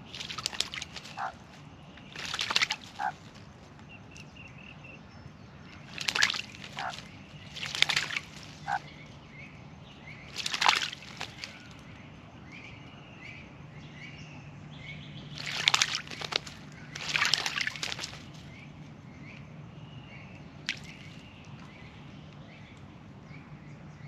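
Australian magpie bathing in a shallow birdbath, dipping and beating its wings in the water: repeated short bouts of splashing, a second or less each, every few seconds.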